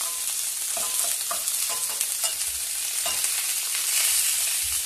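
Chopped onions and green peppers sizzling in oil in a stainless steel pot as they are sweated soft, stirred with a wooden spoon that scrapes the pot a few times.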